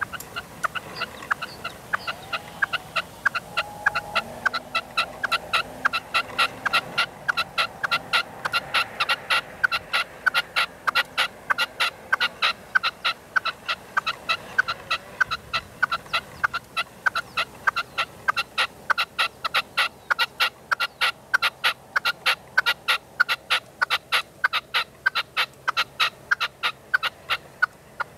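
Red-legged partridge decoy (reclamo) calling in a fast, even series of short sharp notes, about three to four a second, without a break.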